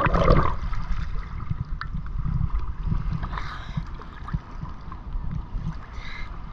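Sea water sloshing and lapping against a camera held just at the surface by a floating swimmer, with an uneven low rumble of water and wind buffeting the microphone. A louder splash comes right at the start.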